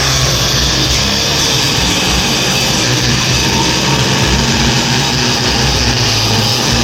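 Loud background music with a heavy bass line, its low notes changing every fraction of a second.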